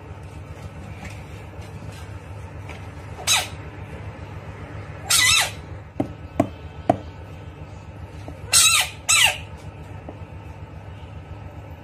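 Bullfrog screaming in distress: four loud, harsh cries, a short one, a longer one, then two close together near the end, with three sharp clicks in between, over a steady low hum.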